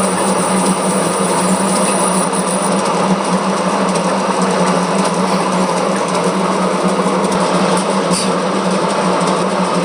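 Metal lathe running steadily while a single-point tool cuts A-section V-grooves into a spinning multi-groove belt pulley: a constant machine hum with the hiss of the cut over it.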